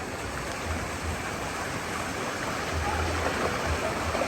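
Steady rushing of water, with low buffeting thumps of wind on the microphone.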